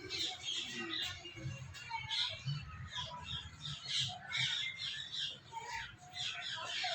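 African grey parrots squawking and chirping, many short high calls coming thick and fast over a low hum.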